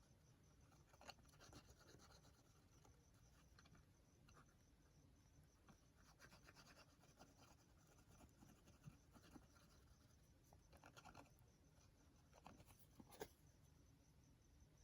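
Faint rustling and scratching of paper being handled, with scattered light taps; a sharper tap about 13 seconds in.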